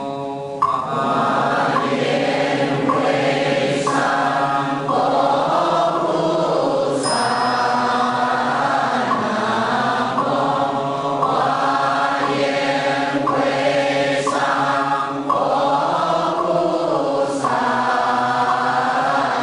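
A congregation chanting a Buddhist liturgy in Chinese in unison, in long sustained phrases, starting about half a second in.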